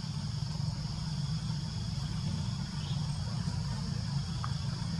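Steady, high-pitched insect chorus buzzing without a break, over a constant low rumble.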